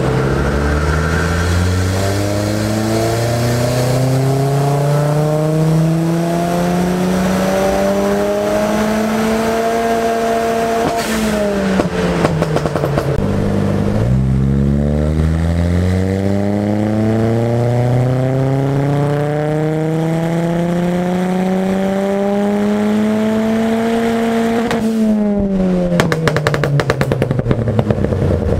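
Ford Fiesta ST180 (Mk7) turbocharged 1.6-litre four-cylinder doing two full-throttle dyno pulls. In each, the engine note climbs steadily in pitch for about ten seconds, then drops away as the throttle is closed. As the second pull winds down, a rapid run of pops and crackles follows.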